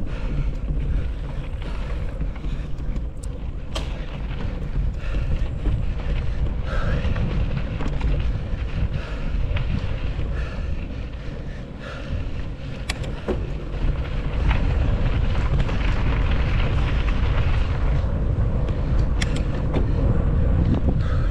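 Wind buffeting an action camera's microphone while a mountain bike is ridden along a trail, with a few sharp clicks and knocks from the bike. The rushing gets louder about two-thirds of the way through.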